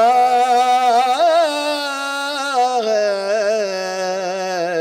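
A man singing unaccompanied Urdu devotional verse in tarannum, drawing out the end of a line as one long wavering note. The note rises briefly about a second in, then settles a little lower.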